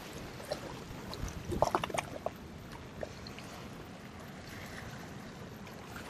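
Shallow sea water washing and trickling over a rocky shoreline, a steady low wash with a few faint clicks about two seconds in.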